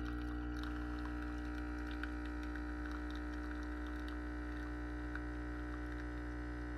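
Single-serve espresso machine running its pump to brew a shot, a steady even hum with faint scattered ticks.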